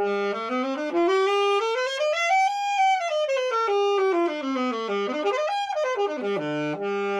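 Solo alto saxophone playing a flowing melody. A run climbs and falls, climbs again, drops to a low note and ends on a held note.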